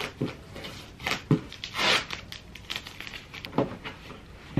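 Cardboard shipping box being handled and opened: a series of knocks and scrapes of the cardboard, with a short rasp about two seconds in.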